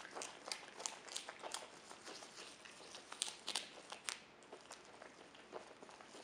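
Capybara biting and chewing raw kale: a quick run of crisp crunches that thins out about four seconds in.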